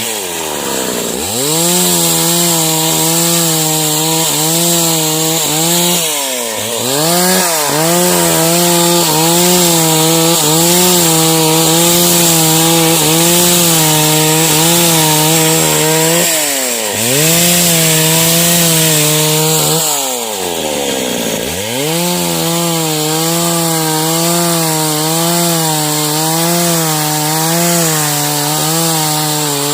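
Stihl MS 381 two-stroke chainsaw held at full revs while cutting sengon wood. The engine drops briefly toward idle and revs back up about four times.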